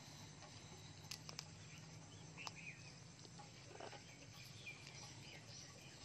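Faint, soft bird chirps and a few small clicks over a low steady background hum; the parrots are quiet.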